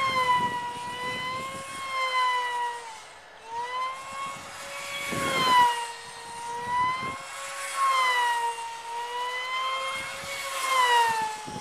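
Electric brushless motor and small propeller of a foam-board RC pylon racer whining at high throttle in flight. The pitch swings up and down as the plane passes back and forth, dips briefly about three seconds in, and a rushing noise swells around five seconds in.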